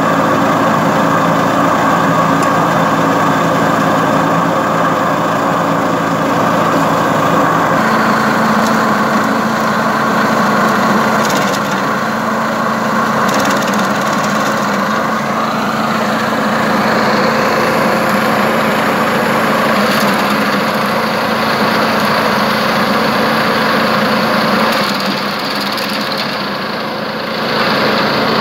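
Drovosek DS-80BD7 garden branch chipper's 7 hp petrol engine running steadily at speed while branches are fed in and chipped, with a few sharp cracks of wood.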